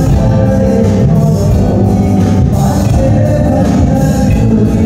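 Live band music played loud through a stage PA: a male vocalist singing over electric guitar and bass guitar.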